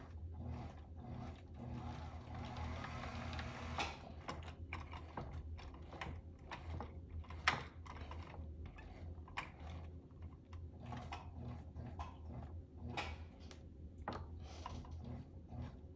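Light, irregular clicks, taps and rubbing from hand work at a rod-wrapping jig: a fishing rod turned in its rollers as thread wraps onto a guide foot. A brief hiss runs from about two to four seconds in, the sharpest click comes about halfway through, and a low hum sits underneath.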